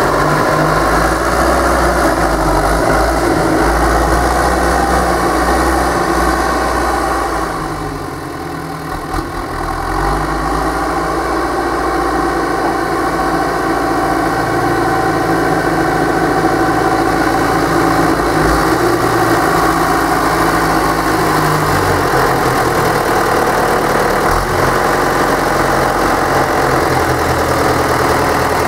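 A John Deere tractor's diesel engine running steadily as the tractor drives over the silage pit, rolling the grass. It fades a little about eight seconds in, then comes back up to full level.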